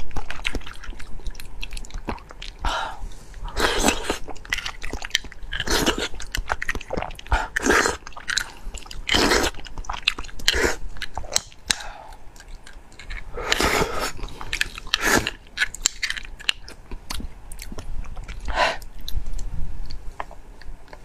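Close-miked chewing and sucking of beef bone marrow, the mouth pressed to the cut end of the bone, in irregular wet bursts with many small clicks.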